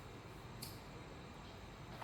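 Faint steady room hiss with one small, sharp click a little over half a second in.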